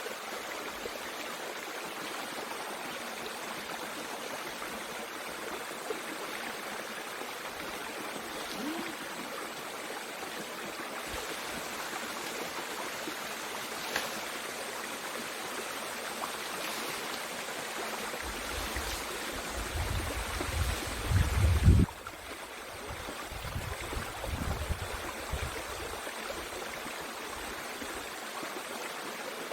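Mountain stream water flowing, a steady rush. A low rumble comes in about two-thirds of the way through and again a little later.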